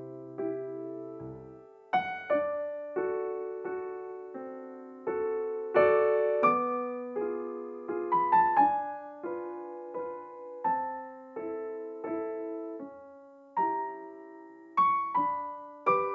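Background piano music: a gentle melody and chords, each note struck and left to die away.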